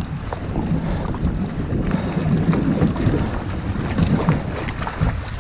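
Wind buffeting the microphone over water slapping around a boat's stern, with splashing as a hooked striped bass thrashes at the surface.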